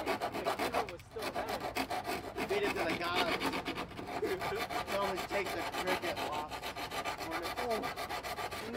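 Rapid, even back-and-forth rubbing strokes of hand abrasive work on a fiberglass body-kit bumper, with a brief pause about a second in.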